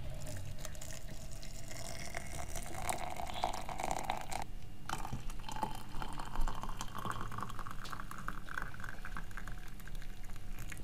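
Water poured from a kettle into a French press, the filling note rising steadily in pitch as the jug fills. It breaks off briefly about halfway, then carries on at a higher pitch and keeps rising.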